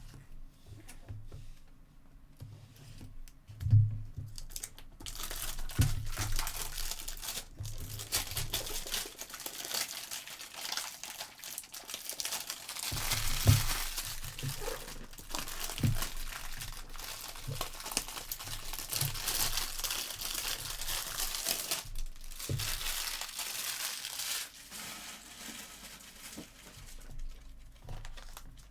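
Foil trading card pack wrappers being torn open and crinkled by hand, with a few soft thumps of cards and packs set on the table. The crinkling starts about five seconds in, keeps up for most of the stretch, and tails off near the end.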